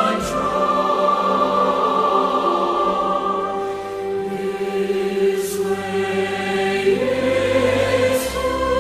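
Background music: a choir singing a slow Christian song, with long held notes.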